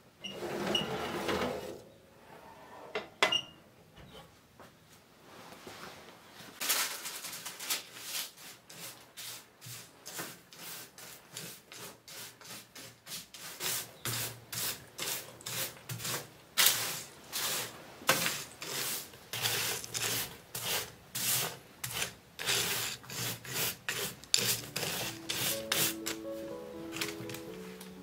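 A spatula stirring and scraping freshly baked granola across a parchment-lined baking tray, a dry rustling scrape at each stroke, about two strokes a second. At the start, the tray slides out of a toaster oven; music comes in near the end.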